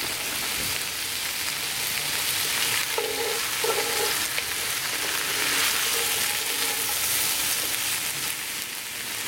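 Diced carrots, potatoes and onions sizzling in a hot cast-iron Dutch oven as they sauté, with a wooden spoon stirring and scraping through them. The hiss is steady throughout.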